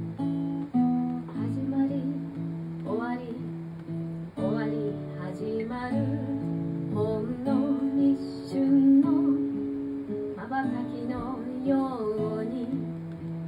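Acoustic guitar being strummed, with a woman singing over it.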